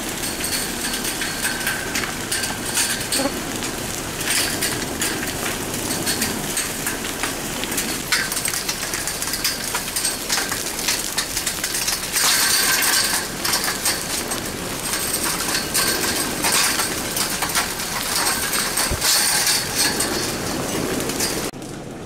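A'a lava flow advancing, its cooling crust cracking and loose chunks tumbling over each other in a continuous glassy clinking and crackling, dropping away suddenly just before the end.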